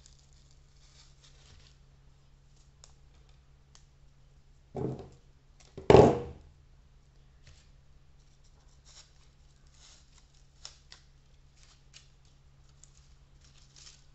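Faint crackling and rustling of dried gypsophilia sprigs being handled and pushed into a dry floral foam sphere. Two louder thumps come about five and six seconds in, the second the loudest.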